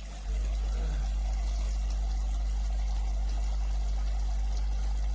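Water pouring in a steady stream from a toy play sink's battery-powered electric faucet, over a loud, steady low hum. Both start just after the beginning and cut off abruptly at the end.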